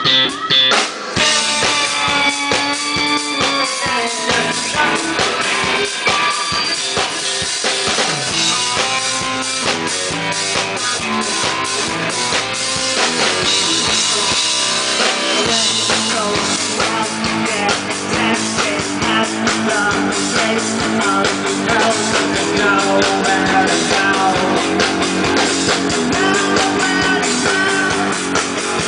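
Band music with a drum kit and guitar, playing steadily throughout.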